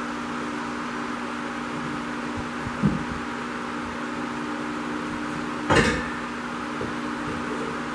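Steel roll cage tubing clanking sharply about six seconds in, with a short metallic ring, after a lighter knock about three seconds in, over a steady mechanical hum.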